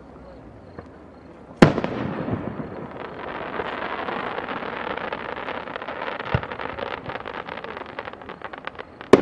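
Aerial fireworks going off: a sharp bang about a second and a half in, then several seconds of dense crackling and popping, and another sharp bang near the end.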